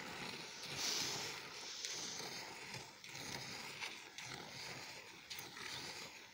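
Goat being milked by hand: jets of milk squirting into a steel pot of frothy milk, a rhythmic hiss with each squeeze of the alternating teats.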